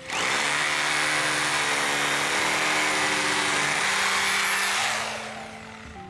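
Cordless power drill running at full speed into deck timber for about five seconds, starting abruptly and winding down near the end.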